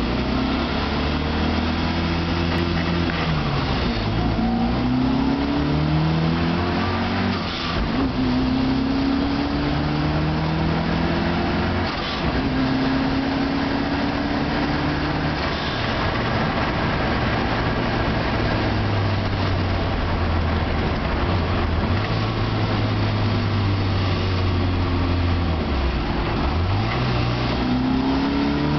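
Turbocharged 1293cc A-series four-cylinder engine of an MG Midget, heard from inside the cabin, accelerating up through the gears of its 5-speed gearbox. The revs climb and drop back at each shift, several times in the first half. The engine then holds a steady note for about ten seconds before climbing again near the end.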